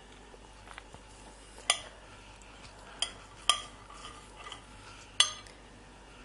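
Metal utensils clinking and scraping against a ceramic plate as lamb is sauced and cut with a knife and fork: four sharp, briefly ringing clinks with softer scrapes between them.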